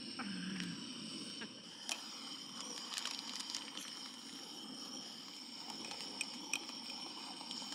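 Small camp stove burner on a gas canister running with a steady low hiss, with a few light clicks over it.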